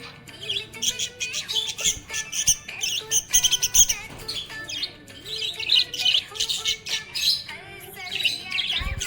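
Budgerigars chirping and warbling, a dense run of quick high chirps.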